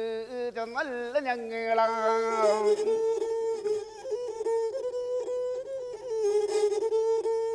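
Pulluvan pattu folk music: a sung phrase with deeply ornamented, bending pitch over a bowed string instrument. After about two and a half seconds the voice stops and the bowed string carries on alone, wavering around one held note with small slides.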